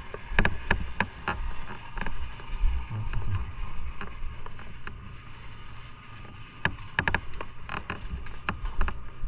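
Footsteps and the creaking of a body-worn camera on its mount while walking, heard as short clicks and knocks, about three a second at times, over a low rumble.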